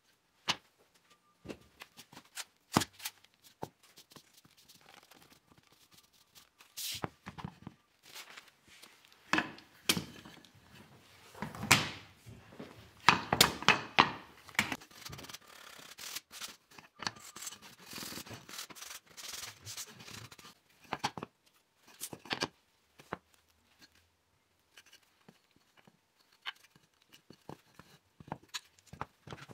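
Wooden frame pieces knocking and rubbing on a workbench while a quick-release bar clamp is clicked tight, with a louder, busier stretch of scraping and rapid clicks in the middle.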